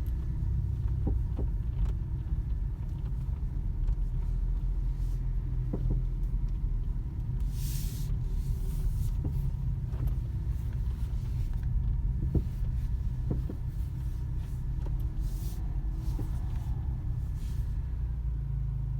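Skoda Octavia A7 front suspension knocking now and then while the car turns slowly on a flat surface, over the steady low rumble of the moving car, with a brief hiss about eight seconds in. The knocks are the front-end fault being shown.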